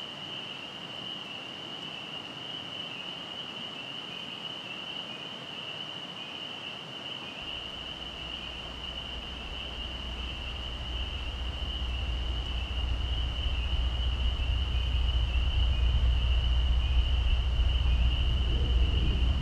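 Night insects trilling steadily at one high pitch. A low rumbling drone comes in about halfway through and keeps growing louder.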